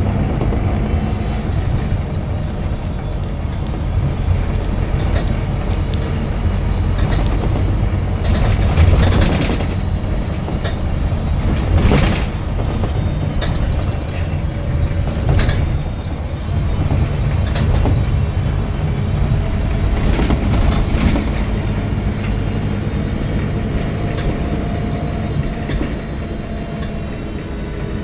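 Inside a Scania K270UB Omnilink single-deck bus: the rear-mounted five-cylinder diesel engine running with a steady low hum and cabin noise, broken by a few brief sharp noises scattered through.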